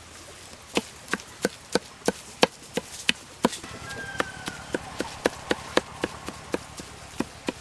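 Cleaver chopping raw beef into mince on a wooden log-stump block: sharp, evenly spaced blade strikes about three a second, starting just under a second in.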